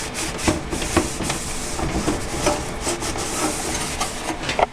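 Rubbing, scraping and light clicking of parts and cables being handled inside a desktop computer case, with many small knocks.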